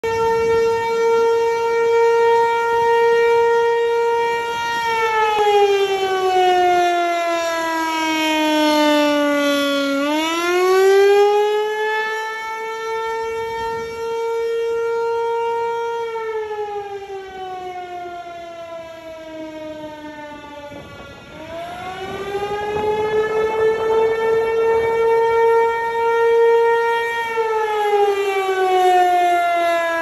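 American Signal T135 rotating outdoor warning siren sounding the Attack signal: a wail that holds a high steady pitch, slides down over about five seconds, then climbs back quickly and holds again, repeating about every eleven seconds. Its loudness rises and falls as the rotating horn sweeps around.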